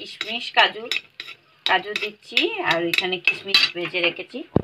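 Metal spoon scraping and clinking against a metal kadai while stirring cashews being roasted: repeated sharp clinks with squeaky scrapes that rise and fall in pitch.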